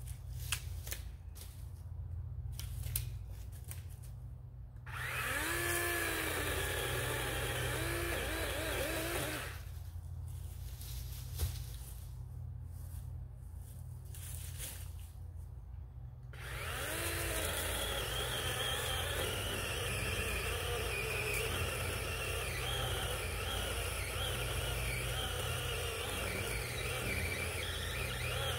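DeWalt 20V XR cordless chainsaw run twice, cutting wood on an old 3 Ah battery. Each time the electric motor spins up with a rising whine and runs steadily, its pitch wavering under load. The first run lasts about five seconds; the second starts about sixteen seconds in and carries on to the end.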